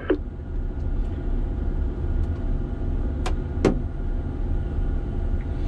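A mobile crane's engine running steadily, a low hum heard inside the operator's cab. A little past halfway come two sharp clicks, a third of a second apart.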